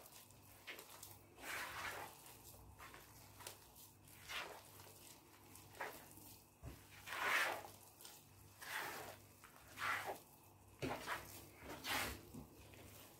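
Hands kneading soft, sticky enriched yeast dough in a bowl: faint, irregular squishing and squelching, about one squish a second.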